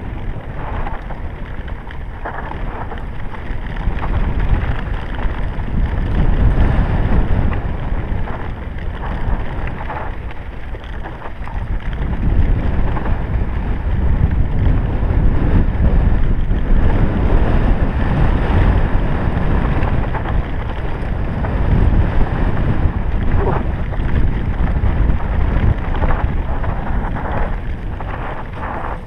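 Wind rushing over a helmet camera's microphone on a mountain bike descending a dirt singletrack, with tyre noise and frequent knocks and rattles from the bike over the bumps.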